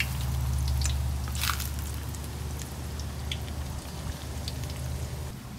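Battered breadfruit frying in hot oil: scattered crackles and pops, the strongest about a second and a half in, over a steady low hum.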